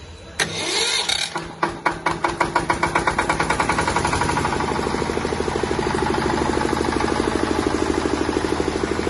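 10 kVA Bajaj diesel generator set starting up: a sudden burst about half a second in, then the engine catches, its firing strokes coming faster over a couple of seconds before settling into steady, even running.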